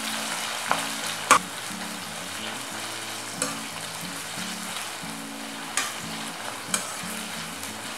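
Sliced onions sizzling in hot oil and ghee in a stainless-steel pressure cooker while a spatula stirs them. The spatula clacks against the pot a handful of times, loudest about a second in.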